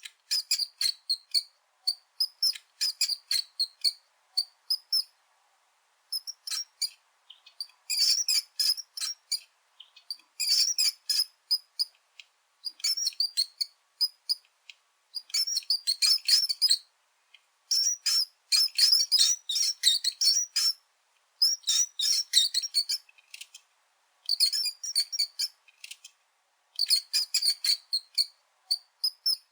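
Mice squeaking: rapid, high-pitched squeaks in clusters of a second or two, separated by short silences.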